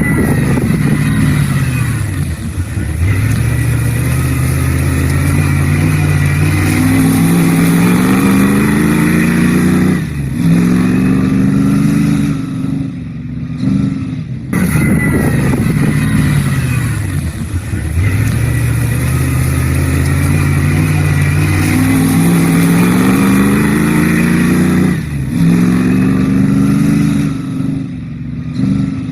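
A racing engine accelerating hard, its revs climbing and dropping back again and again as it changes up through the gears. The same run plays twice, the second starting about halfway through.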